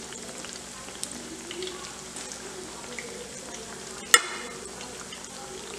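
Gram-flour (besan) pakoras deep-frying in hot oil in a kadai: a steady sizzle with small pops and crackles. A single sharp metallic clink rings out about four seconds in.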